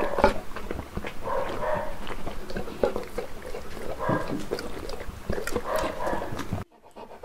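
Saint Bernard chewing soft fruit, with wet smacking and licking of its lips in quick irregular clicks. The sound drops out briefly near the end.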